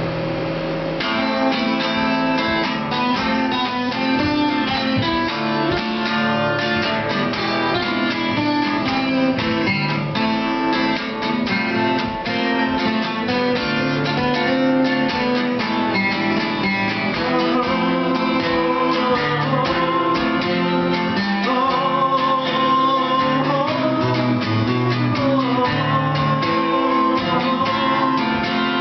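Instrumental passage on two acoustic guitars: a rhythm part under a fast picked lead line.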